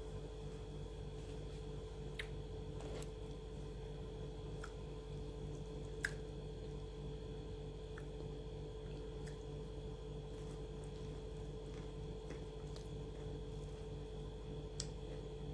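Steady background hum with a few faint, short crackles and clicks from handling and eating a piece of crispy breaded fried food; the sharpest click comes about six seconds in.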